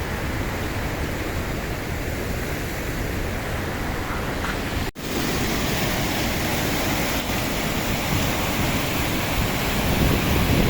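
A steady rushing noise outdoors, even and unbroken apart from a sudden brief cut about five seconds in.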